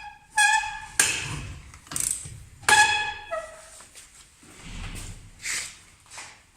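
Metal tools striking metal during hand repair work: a series of sharp clanks, several of which ring on briefly with a clear tone, mixed with lighter knocks.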